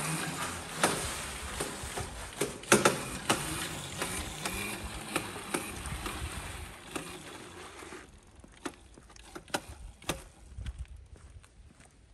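Child's mini dirt bike rolling over concrete, with rattling, clicks and knocks. It quiets after about eight seconds to scattered clicks.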